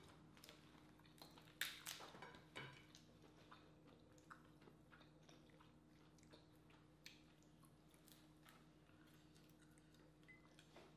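Quiet eating sounds: faint chewing and a few small sharp clicks, strongest between about one and a half and three seconds in, as snow crab legs are picked apart. A faint steady low hum lies underneath.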